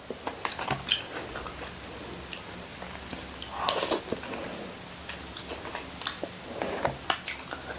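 Eating sounds from someone sucking the meat off a soy-braised salmon head: wet mouth smacks and chewing, with a longer slurp a little under four seconds in.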